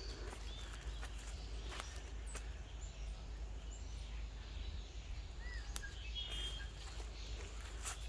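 Wind rumbling on the microphone outdoors, with a few faint, short bird chirps and some light clicks.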